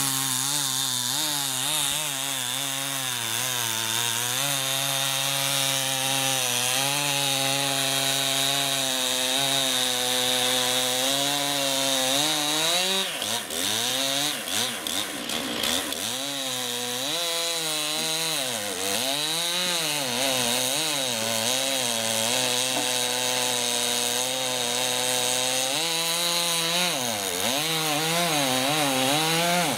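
Two-stroke Stihl chainsaw cutting through beech logs, its engine running hard under load. It holds a fairly even pitch for about the first twelve seconds, then repeatedly drops and revs back up as the chain bites into and clears the wood.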